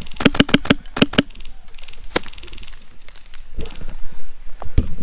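Airsoft rifle firing: a quick string of sharp shots in two bursts in the first second and a half, then a single shot about two seconds in. Softer thuds and rustling follow near the end.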